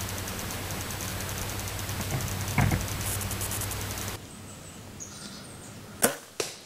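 Handling noise and steady electrical hum from a bow-mounted camera, with a short bump about two and a half seconds in. Then, after a drop to quieter woods, the sharp crack of a compound bow being shot, followed a third of a second later by a second, fainter smack.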